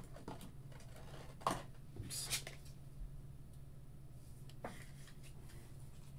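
Faint handling of trading cards: a few soft slides and taps, the clearest about a second and a half in and just after two seconds, over a steady low hum.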